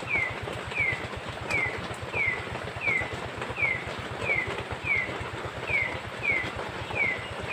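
An animal call, a short falling chirp repeated evenly about one and a half times a second, over the steady hiss of heavy rain.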